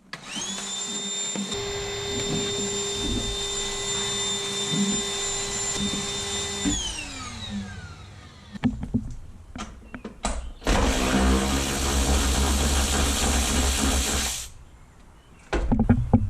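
Electric power tool motor running at a steady high speed for about seven seconds, then winding down with a falling whine. A second, rougher and noisier run of a tool follows near the end, with a few knocks.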